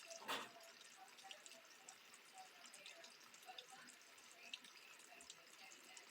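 Faint rain: water dripping, with scattered small drops ticking irregularly over a soft hiss, and one louder drop or tap about a third of a second in.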